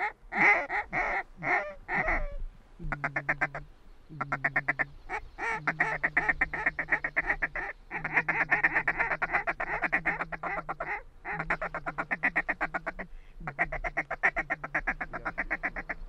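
Mallard duck calls blown at circling birds: a string of about five loud quacks, then long runs of rapid feed chatter broken by short pauses.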